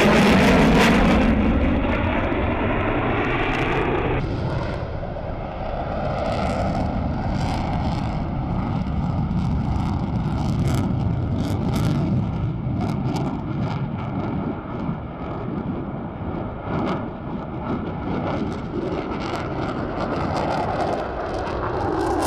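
Jet noise from an F-22 Raptor's two Pratt & Whitney F119 turbofans in a high-power airshow pass, afterburners lit at the start. It is loudest at the outset, with a pitch that falls over the first couple of seconds. After that comes a steady rumble shot through with crackling.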